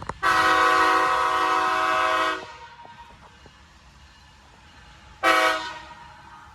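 CSX freight locomotive air horn sounding one long blast of about two seconds, then a short toot about five seconds in. It sounds a chord of several notes. It is the crossing warning of an approaching train.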